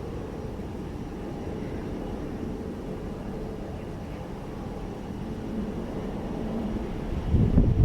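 Airliner jet engines heard as a steady low rumble. Gusts of wind buffet the microphone near the end.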